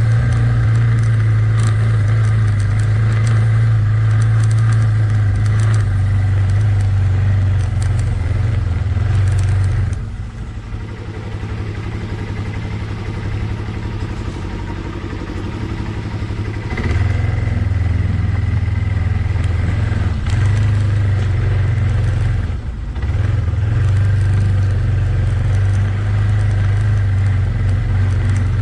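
Yamaha ATV engine running under throttle, picked up close by a GoPro mounted on the ATV. It eases off for several seconds from about ten seconds in, then pulls strongly again, with a brief dip a few seconds later.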